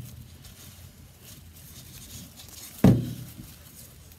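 Soft rustling of jute twine and ribbon being worked by hand as a knot is tied around a bundle of wine corks. One sharp, loud thump comes about three seconds in.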